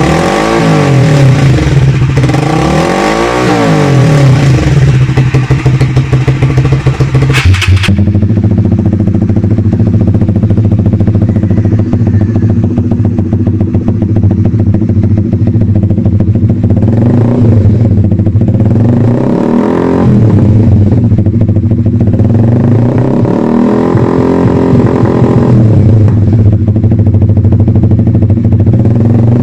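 Motorcycle engine running through an aftermarket exhaust, revved in quick rising-and-falling blips. About seven and a half seconds in the sound changes abruptly to a steady idle, broken by a few more short throttle blips.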